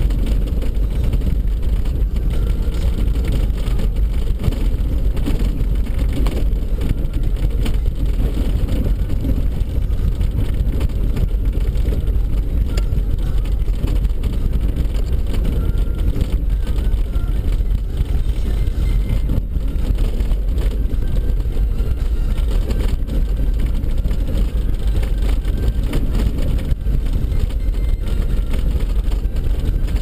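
Steady low rumble of a car driving on a snow-packed road, heard from inside the cabin: engine and tyre noise with no change in speed.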